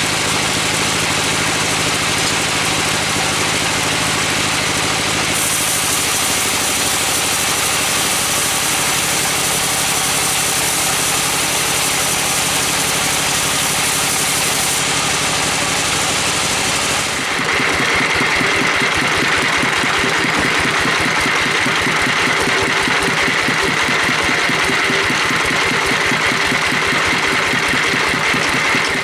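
Engine of wood-sawing machinery running steadily. About two-thirds of the way through the sound changes abruptly to a pulsing engine note with a high whine over it.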